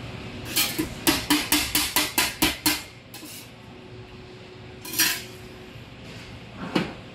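A metal kitchen tool striking a steel worktop as steamed rice noodle rolls are chopped: a quick run of about ten sharp clacks lasting about two seconds, then two single clacks a little later.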